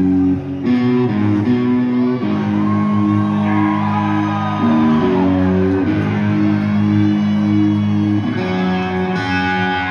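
1980s hard rock: a band with electric guitar and bass guitar playing sustained chords that change every second or so.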